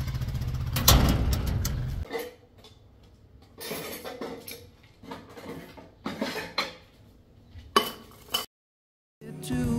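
Dishes and kitchen utensils clinking and clattering as they are handled and put away, in several separate short clatters. A low rumble runs under the first two seconds.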